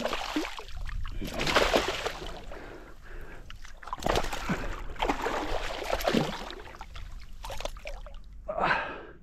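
Shallow seawater splashing and sloshing in irregular spells, heaviest about a second and a half in and again from about four to six seconds in.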